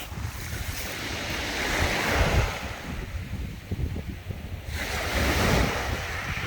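Sea waves washing in, swelling twice, about two seconds in and again about five seconds in, with wind buffeting the microphone.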